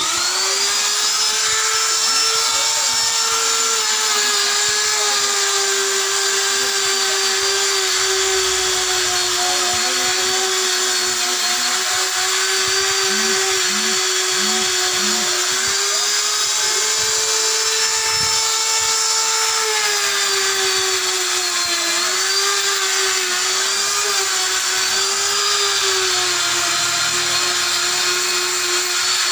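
Handheld electric rotary power tool running without a break, a steady whine whose pitch sags and recovers several times, most around the middle and in the last third, as the tool bears on the work and is eased off.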